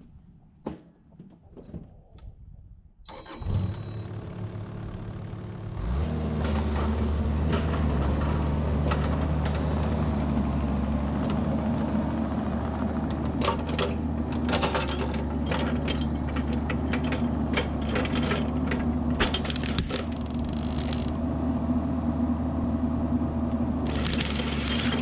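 Kubota KX71-3 mini excavator's diesel engine starting about three seconds in, then throttling up about six seconds in and running steadily, with knocks and clatter from the machine at work.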